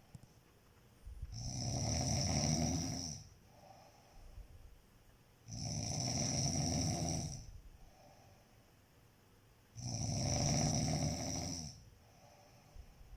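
A sleeper snoring: three long, loud snores about four seconds apart, each lasting about two seconds, with softer breaths between them.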